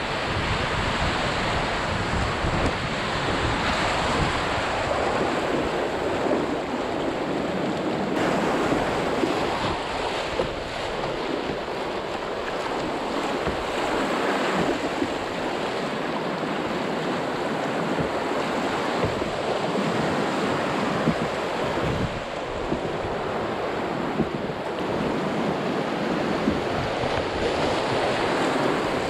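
White-water river rapids rushing steadily and loudly around an open canoe as it runs down through them.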